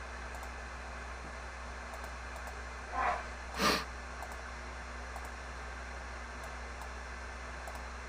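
Two short breath noises close to the microphone about three seconds in, the second louder, over a steady low electrical hum and hiss.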